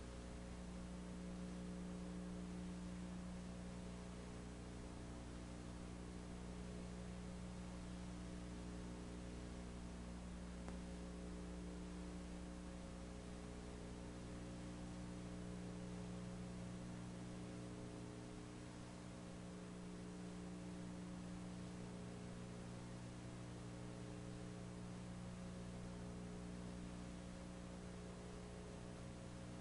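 Steady electrical mains hum with a stack of overtones over faint hiss, unchanging throughout.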